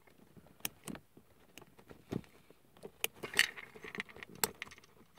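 Hobby nippers snipping plastic armor parts off a model-kit runner: a few sharp clicks at irregular intervals, with light plastic rattling between them.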